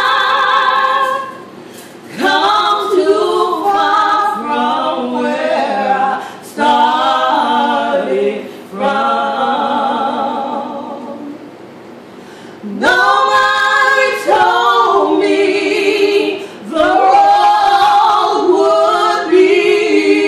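Two women singing a gospel song together a cappella, in sung phrases with short breaks between them; one long note fades out about halfway before the next phrase comes in.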